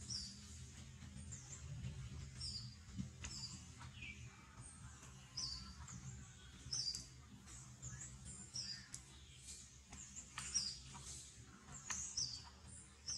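Small birds chirping: short, high chirps repeat every second or so, over a low steady rumble.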